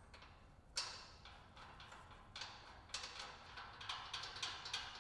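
Light, irregular clicking and ticking of screws and nuts being fitted to the front bumper's mounting brackets: one sharper click about a second in, then a run of small clicks through the second half.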